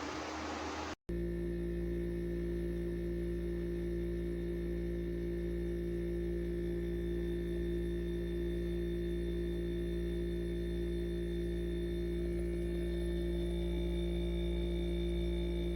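Electric ice cream maker running: a steady motor hum made of several held tones. A brief dropout about a second in; before it the sound is a fan-like whoosh.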